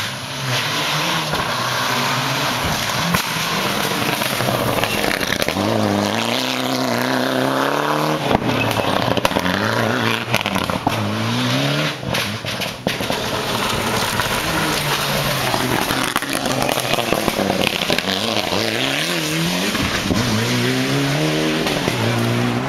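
Turbocharged four-cylinder engines of Mitsubishi Lancer Evolution rally cars at full throttle on a gravel stage, the engine note climbing and dropping through gear changes. Anti-lag pops and bangs come through the middle.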